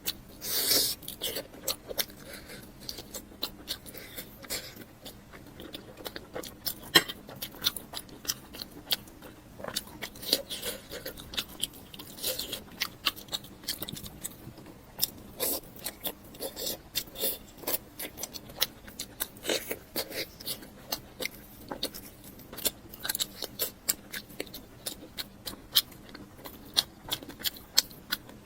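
A person chewing and biting food close to the microphone: a steady run of irregular wet clicks and crunches.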